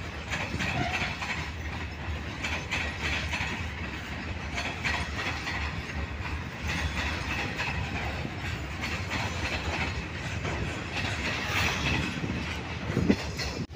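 Long freight train of covered hopper wagons rolling past: a steady rumble of steel wheels on rail with repeated clicks as they cross the rail joints. A brief louder bump comes near the end.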